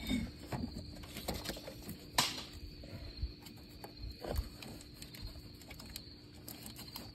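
Scattered light knocks, clicks and rustles as a cordless drill is worked into position among the parts of a van's engine bay. The sharpest knock comes about two seconds in. The drill motor is not running, and a faint steady hum sits underneath.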